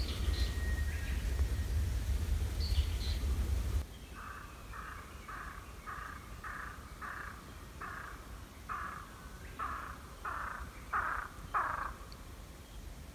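A low rumble of wind on the microphone with a few high bird chirps. Then a bird calls about a dozen times in a steady series, roughly twice a second, growing louder toward the end.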